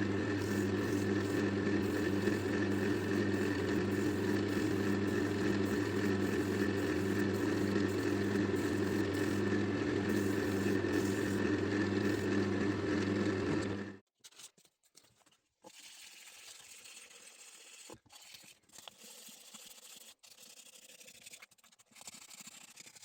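Wood lathe motor running steadily with a constant hum and whine, then switched off about 14 seconds in, leaving only faint handling noise.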